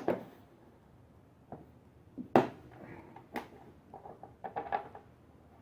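Scattered clicks and knocks of a bolt and hand tools being handled while fitting a lawnmower's top cover. The sharpest knock comes about two and a half seconds in, followed near the end by a quick run of small clicks.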